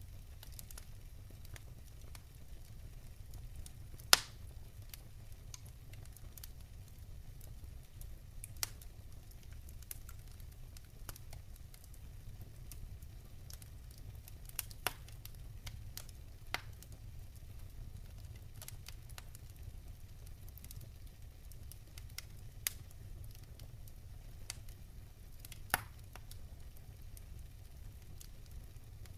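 Scattered sharp crackles and pops, one every second or two, over a low steady rumble; the loudest pop comes about four seconds in, another strong one near the end.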